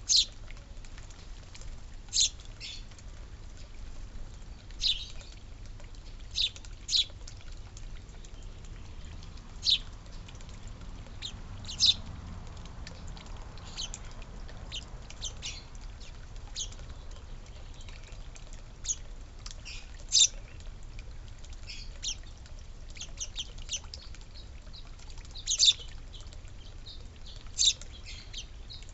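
Small birds at a feeder: short, sharp high-pitched chirps or pecks at irregular intervals, about one every second or two, over a faint low background rumble.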